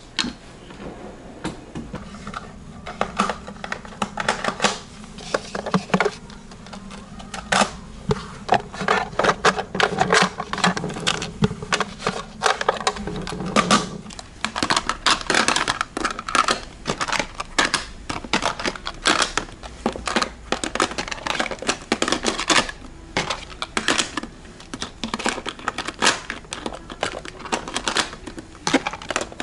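Rapid, irregular clicking and clacking of small plastic items handled on a counter: contact lens cases, dishes and tweezers being picked up, opened and set down.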